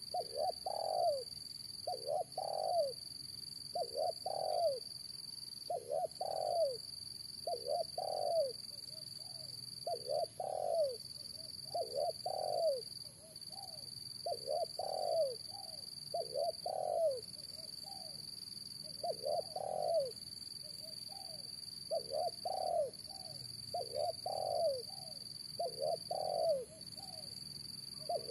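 Spotted dove cooing its repeated song, a low mellow phrase of two or three notes given about every two seconds.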